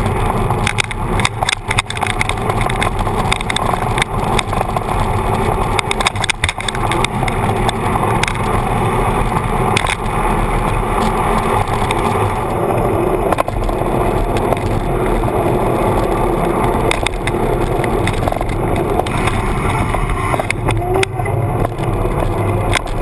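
Bicycle front tyre rolling on asphalt, picked up by a camera mounted on the fork: a steady road rumble and hiss with many short knocks and rattles from bumps.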